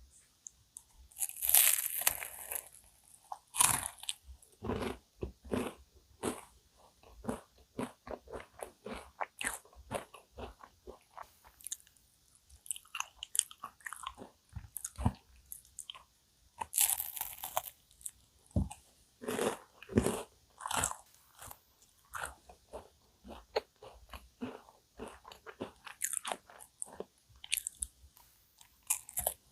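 Close-up crunching bites into cookie choux, cream puffs with a crisp cookie crust, followed by chewing. Two loud crunching bites, one about two seconds in and one about halfway through, each followed by many small crackling chews.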